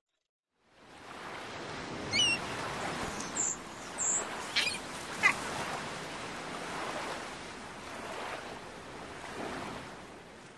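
Water washing in a steady hiss, fading in after a moment of silence, with a few short high bird chirps between about two and five seconds in.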